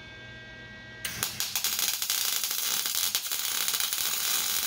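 Lincoln MIG welder arc laying a tack weld on steel, starting about a second in: a steady, dense crackling sizzle like an egg frying, the sound of a MIG weld running right. It cuts off abruptly near the end.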